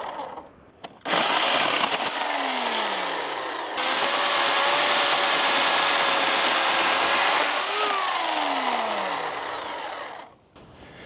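Oregon CS1500 corded electric chainsaw starting up about a second in and cutting through a log, its motor whine steady under load. Near the end the motor is let off and winds down with a falling whine.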